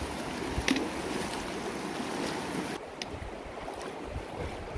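The Virgin River's shallow water rushing over rocks, with a brief splash about a second in. About three seconds in the wash turns quieter and duller.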